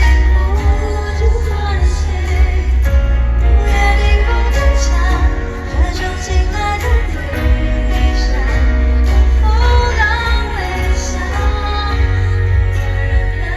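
Live Mandopop concert music heard from the arena floor: a woman singing a ballad over a band with a heavy, booming bass.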